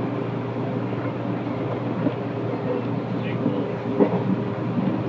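JR Nara Line electric train running along the track, heard from inside the front car: a steady running hum, with a few knocks from the rails, the loudest about four seconds in.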